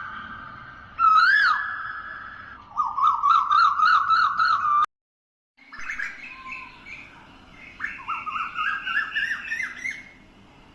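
Birds calling: loud whistled notes that swoop up and down in pitch, then a quick run of repeated up-and-down notes, about four a second. The sound cuts out abruptly for under a second about halfway, then more whistled calls and chatter resume.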